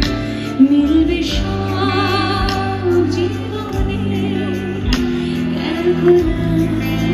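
Live concert music amplified through the stage PA: a woman sings a melody with wavering vibrato over a band's steady bass and accompaniment.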